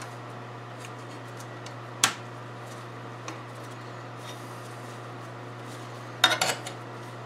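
Small metal clicks and clinks of a hose clamp being worked onto a silicone radiator hose by hand: one sharp click about two seconds in and a quick cluster of clicks near the end, over a steady low hum.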